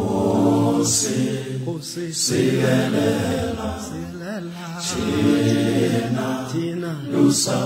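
Intro music of chanted, a cappella-style group singing, with long held notes that change every second or two.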